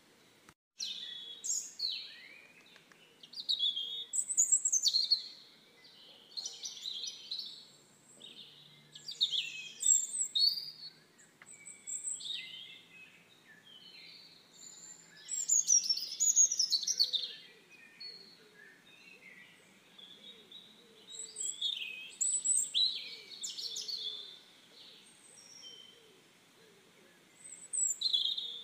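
Small songbirds chirping and singing in quick high phrases, a new burst every second or two.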